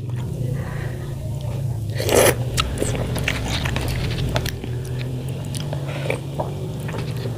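Close-miked eating sounds: slurping tom yum broth and soup noodles off a plastic spoon and chewing, with short wet mouth clicks and a louder slurp about two seconds in. A steady low hum runs underneath.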